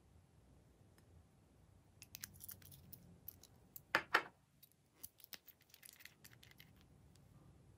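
Small glass nail-polish bottles clicking and clinking as they are handled, with two loud clicks about four seconds in, then a run of lighter clicks as a bottle cap is twisted.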